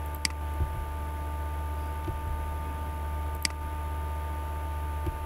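Two sharp computer mouse clicks about three seconds apart, over a steady electrical hum in the recording.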